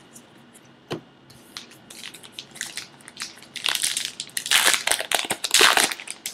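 Plastic-foil wrapper of a baseball card pack being torn open and crinkled. The crackling builds to two loud stretches near the end, after a single sharp click about a second in.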